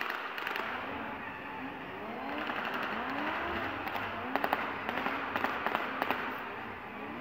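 Stunt vehicles' engines running around an arena, broken by short rapid bursts of sharp bangs from staged battle effects, mock gunfire or pyrotechnics, about four and five to six seconds in.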